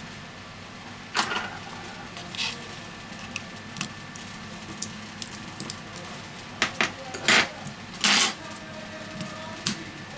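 Small clicks, taps and scrapes of steel tweezers and fingertips on an opened Xiaomi Redmi Note smartphone's metal frame and circuit board, as a flex-cable connector is worked and the battery is set into its bay. Two longer, louder scrapes come about seven and eight seconds in.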